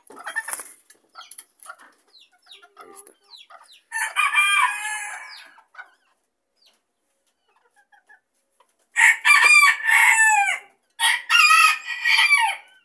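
Bantam rooster crowing: one loud crow about four seconds in, then two more close together near the end. Soft hen clucking comes before them.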